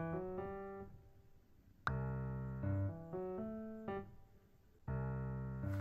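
Background music: a keyboard melody over a bass line, in short phrases that start loud and fade away.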